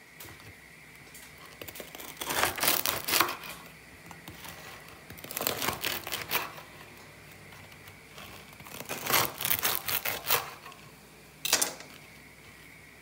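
A long knife sawing through the crisp sesame-seed crust of a homemade loaf on a wooden board, the crust crackling and crunching with each stroke. There are three bouts of sawing, then a brief crackle near the end.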